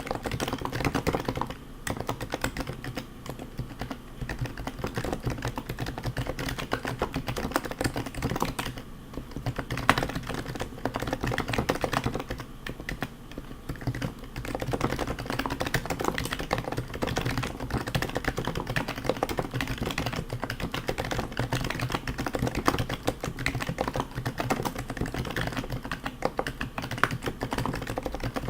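Fast typing on a custom HHKB JP Topre keyboard fitted with heavy BKE rubber domes, silenced purple sliders and Hi-Pro keycaps: a dense, continuous run of keystrokes with a couple of short pauses.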